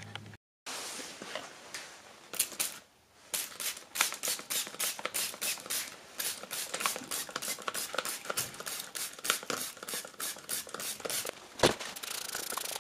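Hand trigger spray bottle spritzing, misting the ceramic fiber wool lining of a forge. The short, sharp sprays come in a quick rhythm of about three to four a second, starting about two seconds in.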